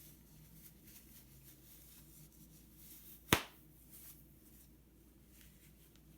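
Faint rustling of packaging being handled, broken by one sharp, loud click or snap a little over three seconds in.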